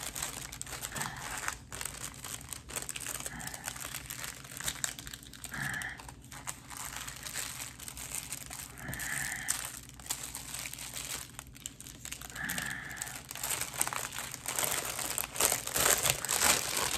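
Plastic packaging bags crinkling and rustling as items are unwrapped and handled, with a few brief high tones every few seconds.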